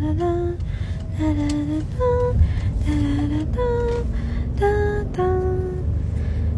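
Background music: a slow, wordless lullaby-like melody of short held notes stepping up and down, over a low steady rumble.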